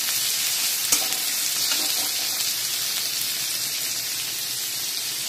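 Chopped onion, capsicum and green chilli sizzling steadily as they shallow-fry in hot oil and ghee in a steel kadhai, stirred with a steel spatula that taps the pan once about a second in.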